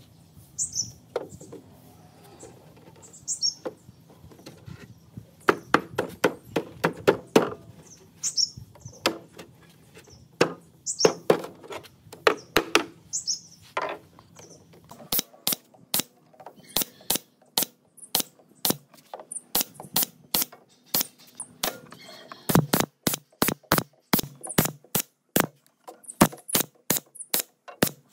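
Pneumatic brad nailer firing brads into a wooden speaker cabinet: about halfway through come dozens of sharp shots in quick runs. Before that, scattered wooden knocks as the boards are handled, with birds chirping.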